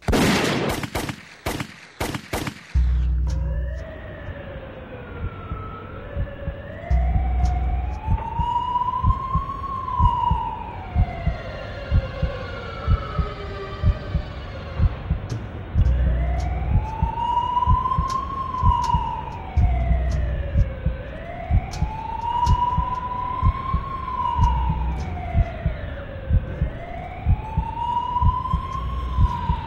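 A quick run of loud, sharp bangs in the first few seconds. Then a siren wails up and down in slow cycles, rising and falling about every two and a half seconds, over a repeating low thumping pulse.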